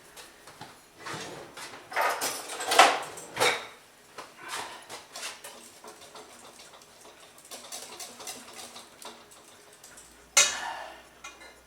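A metal utensil scraping and clinking against a mixing bowl, with a few louder scrapes in the first few seconds, light taps in the middle, and one sharp ringing clink near the end.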